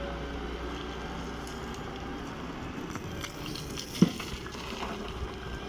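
Doosan excavator running with a steady low rumble, and one sharp loud knock about four seconds in.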